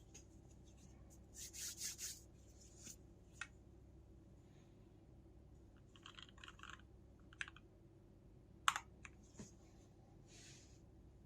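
Cidoo V65 mechanical keyboard with lubed Gateron Milky Brown switches: a few scattered, irregular key clicks, the loudest about two-thirds of the way in, among soft rubbing and scraping noises, with no steady typing rhythm.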